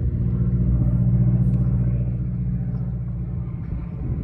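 Piston engine of a World War 2 fighter plane flying past overhead, a steady low drone. It is loudest about a second in and grows slowly fainter as the plane moves away.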